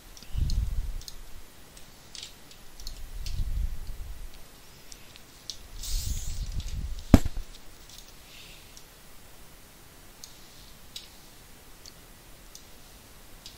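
Scattered light clicks of a computer mouse and keyboard, with a sharper click about seven seconds in. Three low, muffled rumbles come in the first half.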